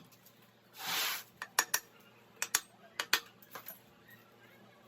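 Metal engine parts and hand tools clinking and tapping against each other as they are handled, in sharp, irregular clicks, with one short hiss about a second in.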